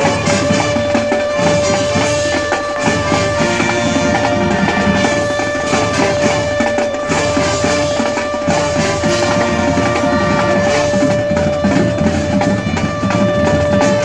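RIT Tigers ice hockey goal horn holding one steady, loud tone, its pitch having just risen to full, over a goal song with heavy drums.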